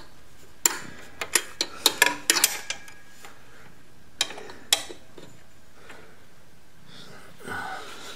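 Sharp metal clicks and clinks of the rear brake rod, its pin and the brake pedal linkage being worked into place by hand on a 1973 Honda CB750. There is a quick cluster of clinks in the first three seconds, then two more about four and a half seconds in.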